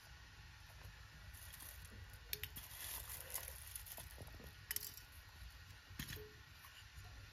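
Faint handling sounds of dried rosebuds being picked from a metal bowl and dropped into a metal teapot: soft rustling with light clicks, three of them sharper, over a low steady hum.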